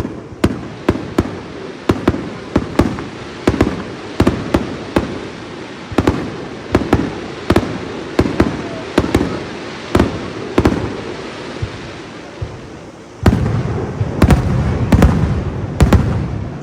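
Fireworks display: aerial shells bursting in quick succession, a sharp bang every half second or so, each followed by a short rumbling echo. About thirteen seconds in the barrage turns louder and denser.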